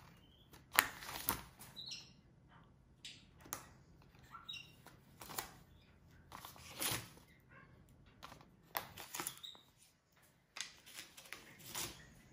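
Notebook paper rustling, scratching and tearing in short, irregular bursts as a capuchin monkey scribbles with a pen and rips at the pages.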